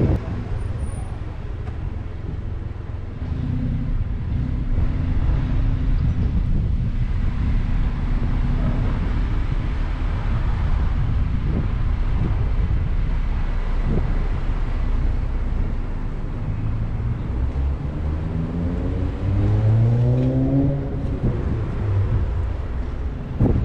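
A vehicle's engine running as it drives along at low speed, over a steady rushing road and wind noise. A little over three-quarters of the way through, the engine pitch rises as it accelerates.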